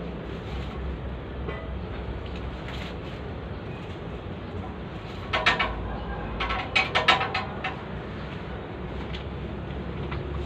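Excavator diesel engine running steadily with a low rumble. About halfway through, a quick series of sharp metallic knocks and clanks comes in two clusters.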